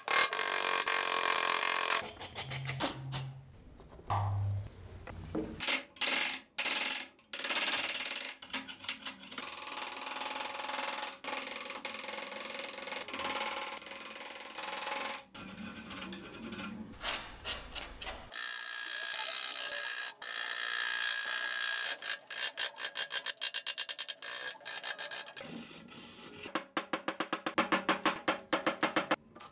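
Hand chisels and gouges cutting and scraping wood in a series of short strokes, with a quick run of mallet taps on a chisel near the end.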